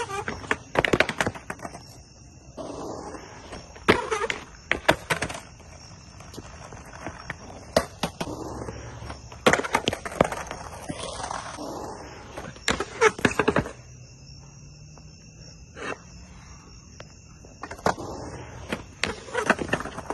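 Skateboard on a concrete quarterpipe: stretches of the wheels rolling over the concrete, broken by several clusters of sharp clacks and slaps as the board strikes the metal coping and the ground during fakie noseblunt attempts, including the board clattering away after a bail.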